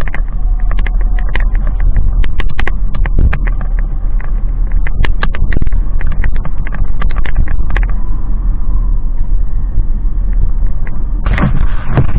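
A motorcycle on the move: a steady low rumble of engine and wind on the microphone, broken by frequent sharp knocks. A louder rush of noise comes about 11 seconds in.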